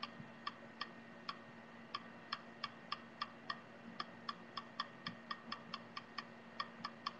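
Faint, light clicking, about three clicks a second and a little uneven, over a faint steady hum.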